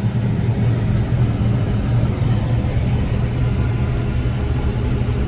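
John Deere 9770 combine running steadily, a loud low engine drone heard from inside the cab.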